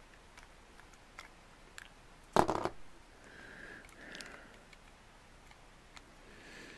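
Plastic LEGO bricks being handled and pushed together as two pieces are worked into line: scattered faint clicks, with one louder clack about two and a half seconds in.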